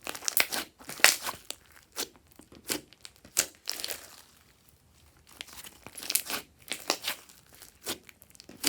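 Glossy slime being squished and stretched by hand, giving irregular bursts of crackling and clicking, with a short pause about four to five seconds in.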